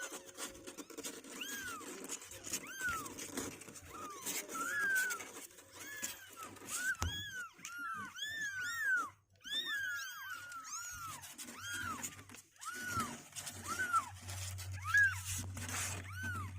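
Two-week-old kittens mewing again and again, each call a short high cry that rises and falls, several calls overlapping at times. A low steady hum comes in during the last couple of seconds.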